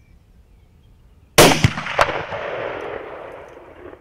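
A single shot from a Sabatti Rover 870 bolt-action rifle about a second and a half in: a loud sharp crack, a second sharper crack half a second later, then the report echoing and fading away over about two seconds.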